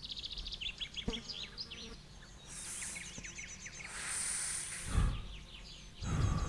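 Birds chirping and trilling, rapid repeated high notes, over a meadow ambience. Two short stretches of hiss break in around the middle, and there is a low thump about five seconds in.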